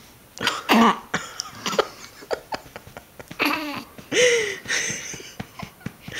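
A baby fussing while being burped: short grunts, coughs and a few squeaky cries, with light taps in between.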